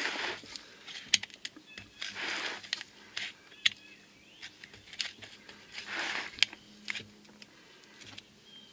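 Flathead screwdriver prying an old axle seal out of a steel wheel hub, the seal lip being walked out a little at a time. There are scattered sharp metal clicks, roughly one a second, with a few short scrapes between them.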